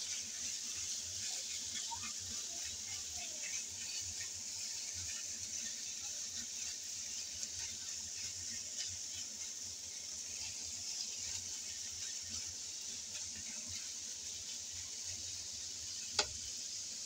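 Sliced onions and meat sizzling in a frying pan as they are turned with a spatula: a steady, high hiss. A single sharp click sounds near the end.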